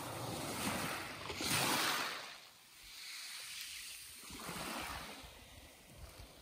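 Small waves washing up a shingle beach and drawing back, heard as swells of rushing noise: a louder surge about a second and a half in and a weaker one around five seconds.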